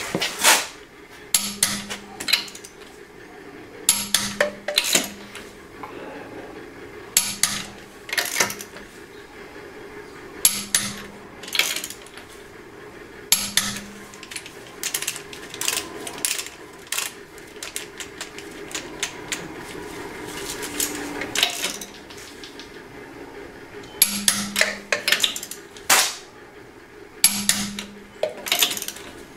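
Ratchet wrench clicking in short bursts every few seconds as a socket runs lug nuts down onto a truck's alloy wheel, with metallic clinks of socket and nuts. The bursts are sparser for a stretch in the middle.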